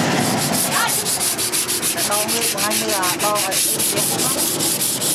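Sandpaper rubbed by hand along a large steel sword blade forged from a chainsaw blade, in quick, even back-and-forth strokes that make a steady rhythmic rasping hiss.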